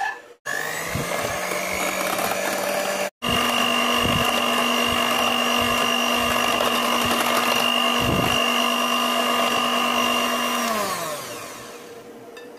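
Electric hand mixer running steadily, its motor whining as the beaters whip cream and cooled cornflour custard together in a glass bowl. After a brief break about three seconds in it runs at a higher pitch, then winds down with a falling pitch near the end.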